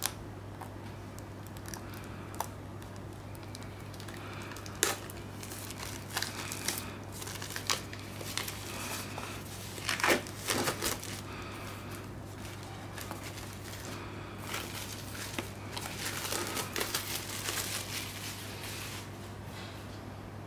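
Clear plastic shrink-wrap being pulled off a Blu-ray slipcase by hand, crinkling and crackling in separate sharp rustles. The loudest crackle comes about halfway through, and there is a busier stretch of crinkling near the end.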